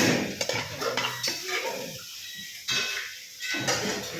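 Metal pots, pans and utensils clattering and scraping in irregular knocks, as in cooking.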